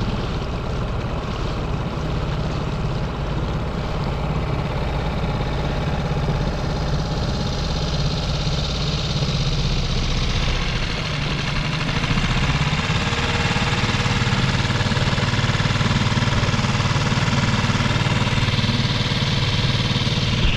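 A 6 hp Mercury single-cylinder four-stroke outboard runs steadily at low throttle, chugging along below planing speed during its break-in. A steady hiss sits over the engine, and its tone shifts slightly about halfway through.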